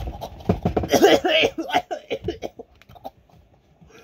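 A man coughing and clearing his throat, mixed with short hisses of a cologne spray bottle being spritzed at his neck. The busiest stretch comes about a second in.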